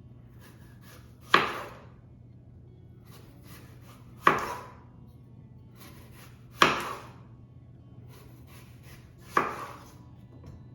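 A kitchen knife slicing cored apples into thin rings on a cutting board: four separate cuts a few seconds apart, each a sharp knock as the blade goes through and hits the board, trailing off briefly.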